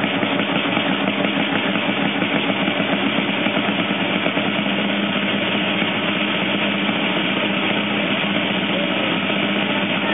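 Side drum played in a steady, rapid roll, echoing off the walls of a small paved square.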